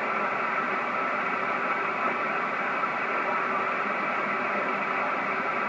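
Steady hiss of band noise from an Icom IC-781 HF transceiver's speaker, receiving on the 20-metre band in upper sideband with no station tuned in. The hiss is cut off above about 3 kHz by the receiver's sideband filter.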